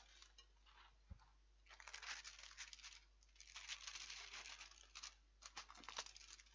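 Plastic film lid being peeled off a microwave meal tray: a faint crackly tearing and crinkling, in one spell about two seconds in and a longer one from about three and a half seconds.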